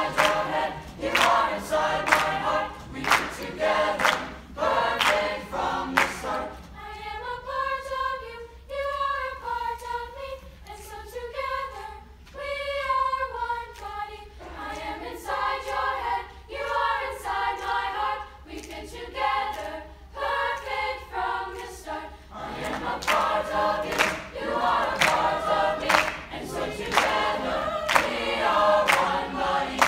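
Mixed high school chamber choir singing in harmony. A steady beat of sharp hand claps, about two a second, runs under the singing at the start, drops out for a sung passage in the middle, and comes back about two-thirds of the way through.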